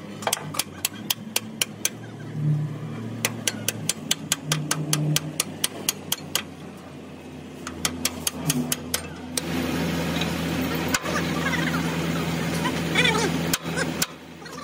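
Hand hammer striking a steel drift bar on a steel truck chassis frame: a fast run of sharp metal blows, about four a second, for the first six seconds or so, then only a few scattered strikes. About nine seconds in a steady louder rumbling noise comes up under them.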